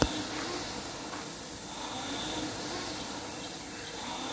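Air rowing machine's fan flywheel whirring steadily as it is rowed. There is a sharp click right at the start.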